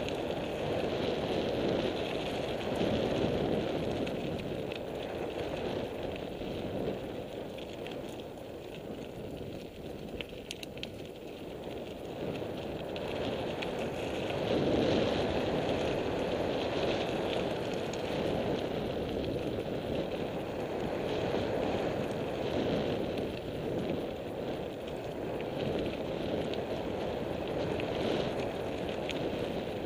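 Mountain bike descending a gravel forest singletrack: tyres rolling and crunching over the surface, with small rattles from the bike over bumps and wind rushing over the camera microphone. The noise swells and eases with speed, loudest about fifteen seconds in.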